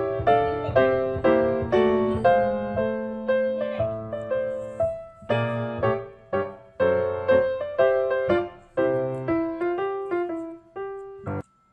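Background piano music: a light melody of struck notes, about two a second, that cuts off suddenly near the end.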